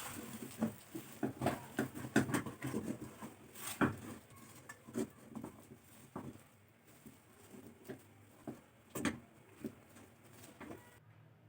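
Irregular light taps and clicks of kitchen handling, busiest in the first four seconds and sparser after.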